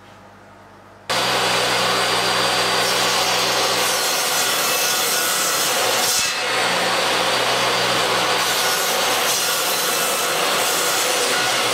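Table saw running and cutting a board on a crosscut sled: loud, steady motor and blade noise with a low hum under it, starting suddenly about a second in.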